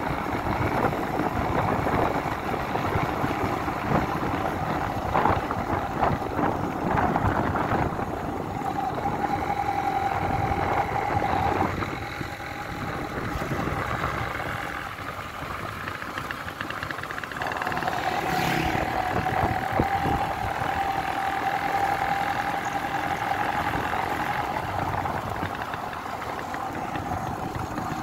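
Motorcycle engine running while riding, with a steady whine over the engine and road noise. It eases off about twelve seconds in and picks up again about five seconds later.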